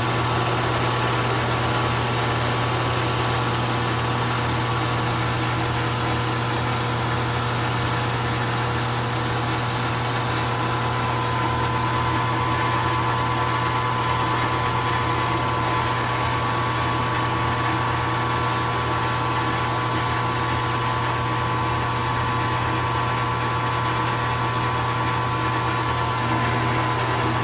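Milling machine running with its face-milling cutter cutting across the deck of a mini V8 engine block: a steady motor hum with a high whine, unbroken throughout.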